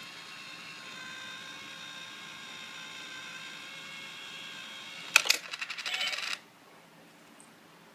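Small battery-powered motor of a cat-thief coin bank whining steadily as the lid opens and the cat reaches for the coin. About five seconds in, a sharp knock and about a second of clattering as the coin is swept into the box, then it stops suddenly.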